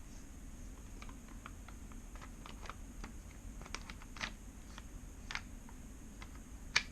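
Scattered light clicks and taps of a Glock pistol being seated into a Micro Conversion Kit chassis, with one sharper click near the end.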